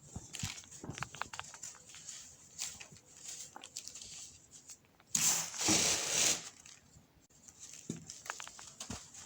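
Compressed baking soda crumbles being crushed: a run of small crackles and crunches, with one longer, louder crunch about five seconds in that lasts over a second.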